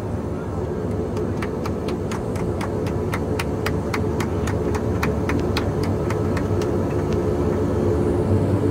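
Inside the cabin of a British Aerospace Jetstream 32, its Garrett TPE331 turboprops running steadily as the aircraft rolls out on the runway after landing. A run of quick, sharp clicks, several a second, sounds for about five seconds in the middle, and the drone grows a little louder near the end.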